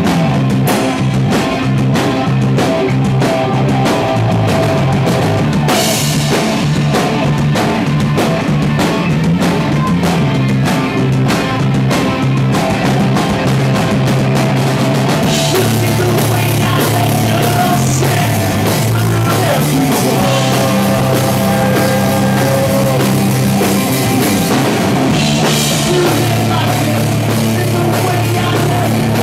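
Punk rock band playing live: distorted electric guitar, bass and fast drumming on a full drum kit, loud and steady, with cymbal crashes about six seconds in, about halfway through and near the end.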